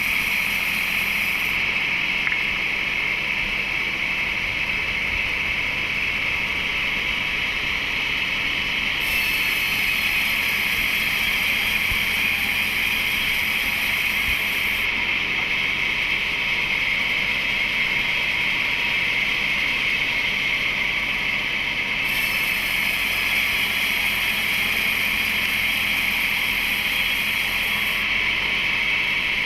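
Wood-splitting machinery running with a steady drone and a strong high whine throughout. A higher hiss switches on and off every several seconds.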